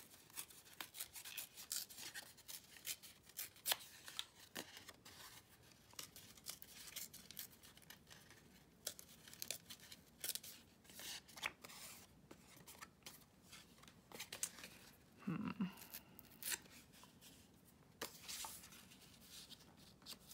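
Paper being torn by hand, a quiet run of small crackles, rips and rustles, torn slowly to give it a rough torn edge.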